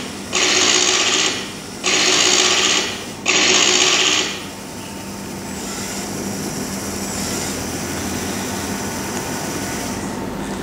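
Small Lego WeDo motors and gears of a toy crane whirring in short bursts of about a second, twice in the first four seconds after one already running at the start, then running on more quietly and steadily.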